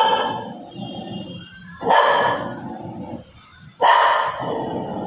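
Dog barking repeatedly, one loud bark about every two seconds, three in all: warning barks at an intruding bird.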